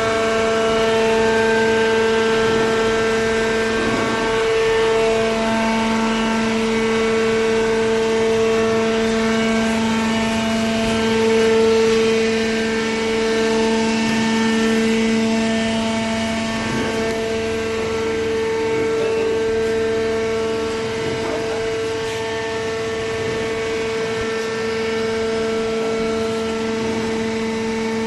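Hydraulic cardboard baler's power pack running: a loud, steady mechanical hum with a strong pitched whine. The lower hum grows stronger about five seconds in.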